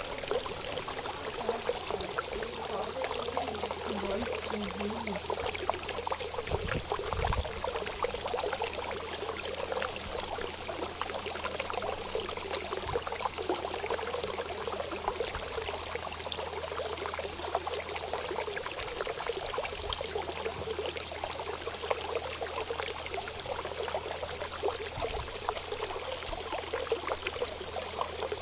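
Running water flowing steadily, an even continuous trickle with no breaks.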